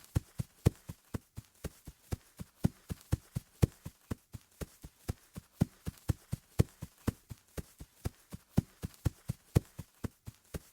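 Footsteps running on grass: an even run of thudding steps, about three a second.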